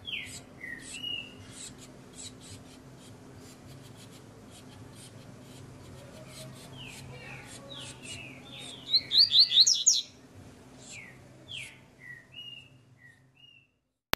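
Small caged songbirds chirping: short, downward-slurred call notes, with a faster and louder run of chirps about nine to ten seconds in. Scattered faint clicks and a steady low hum lie underneath.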